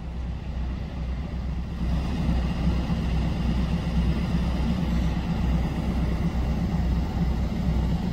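Diesel work locomotive's engine running nearby, a steady low rumble that grows louder about two seconds in.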